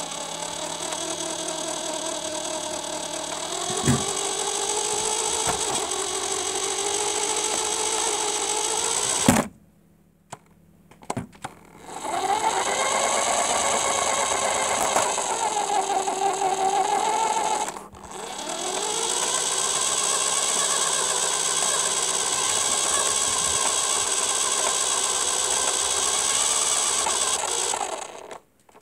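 The motor and gear drive of a radio-controlled Mustang car whine as it drives, heard from on board, the pitch rising and falling with the throttle. The whine stops about nine seconds in, with a few clicks, then picks up again, dips briefly, and cuts out just before the end.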